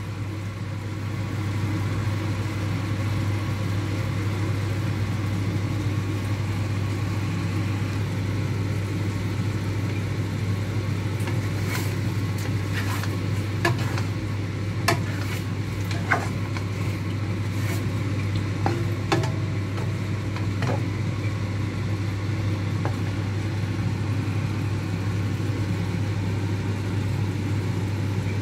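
Steady low kitchen hum and hiss under a wok of chicken and mushrooms simmering in sauce. In the middle a spatula knocks and scrapes against the stainless steel wok a dozen or so times as the pieces are stirred.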